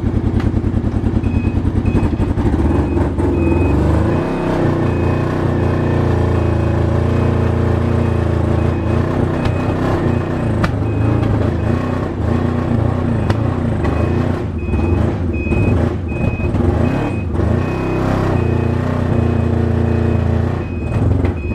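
Yamaha Apex snowmobile's 1000 cc four-cylinder four-stroke engine running rough, sounding like a diesel: the running problem the sled has. A short high beep repeats about every half second under it.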